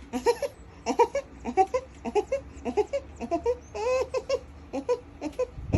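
Laughter: a long run of short, high-pitched giggles, several a second.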